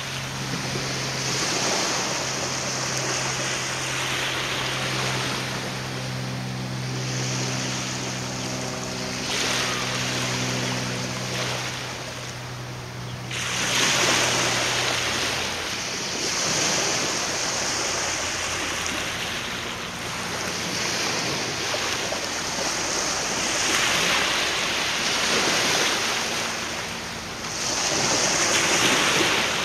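Waves washing in on the shore, a hiss that swells and ebbs every few seconds, under a low steady hum from a vessel's engine that fades out about halfway through.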